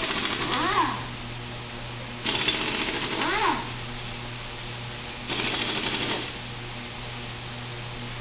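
Impact wrench run in three short bursts of about a second each, with a pitch that rises and falls inside the first two bursts. A steady low hum runs underneath.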